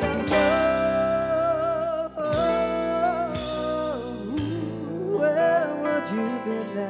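Rock band playing live, with a lead line of long held notes with vibrato over the backing; the lead slides down about four seconds in, then rises again near the end.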